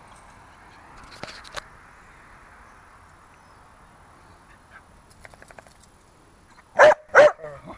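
A dog barking twice in quick succession near the end, over faint outdoor background noise.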